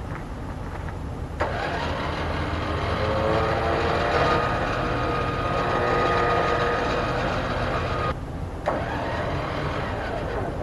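Warn electric winch on a Ram Power Wagon spooling in its cable with no load, the line guided on by hand. The motor whine starts suddenly about a second and a half in and rises as it spins up. It stops for about half a second near the end, then starts again.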